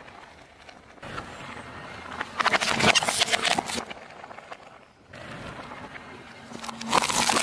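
Hard plastic items cracking and crunching under a car tyre on asphalt: two bursts of rapid crackling, the first lasting over a second and the second near the end, with quieter tyre and road noise between.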